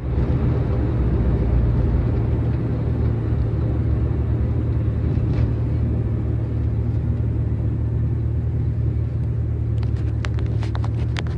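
Subaru STI's turbocharged flat-four idling steadily through an axle-back exhaust with mufflers, a low, even rumble with no revving. A few short clicks near the end.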